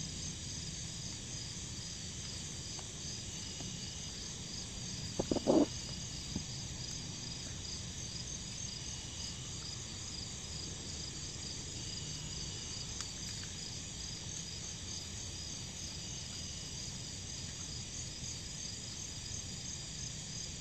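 Steady chorus of insects trilling in two high, pulsing bands, with a brief cluster of knocks about five seconds in and a single softer knock a second later.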